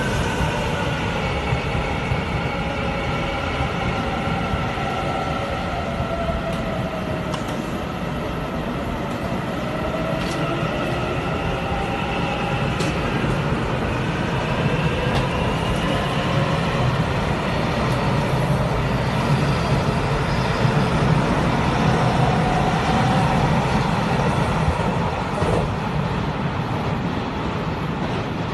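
Taiwan Railway EMU900 electric commuter train moving along an underground station platform: a steady heavy rumble of wheels on rail, with electric motor whine sliding up and down in pitch. A few sharp clicks come in about the middle.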